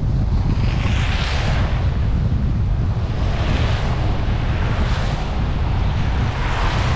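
Wind buffeting the microphone as a loud, steady low rumble, with three swells of rushing hiss: about a second in, past three seconds, and near the end.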